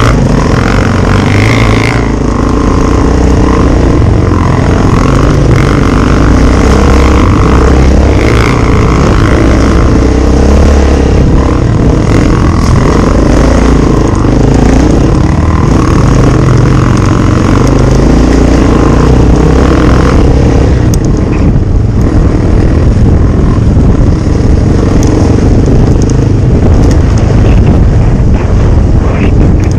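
Loud, steady engine noise of a motor vehicle running.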